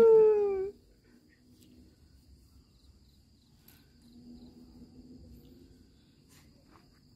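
Dog howling: one long howl that falls slightly in pitch and stops about a second in. After it, only a faint steady high-pitched whine remains.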